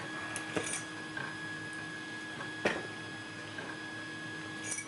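3D printer running, a steady hum with faint whining tones. Several light clicks, with a sharper knock near the middle.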